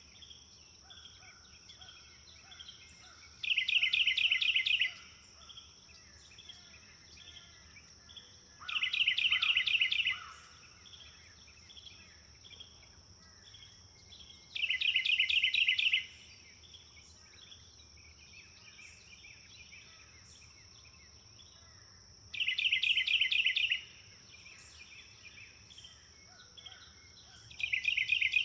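Wildlife ambience: a loud rapid trill, about a second and a half long, comes back five times roughly every six seconds over softer bird chirps and a steady high insect whine.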